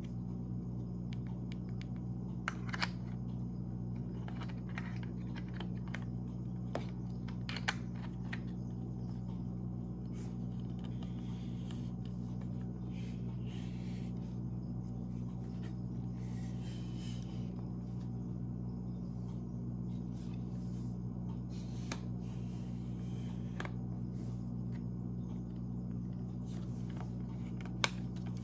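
Plastic clicks and soft scraping as a mini tripod is handled: its telescoping pole slides out and its parts snap into place, with a few sharp clicks near the start and one near the end. A steady low hum runs underneath.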